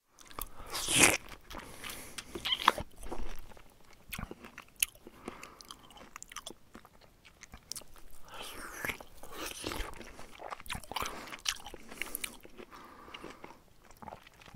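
A hamster biting and chewing food: a run of sharp, irregular bites and small clicks, loudest about a second in.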